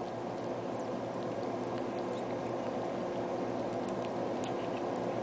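Cat eating food, making small scattered chewing clicks over a steady background hum.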